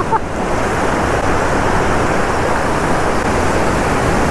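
Steady, even rush of water from a waterfall on a swift river.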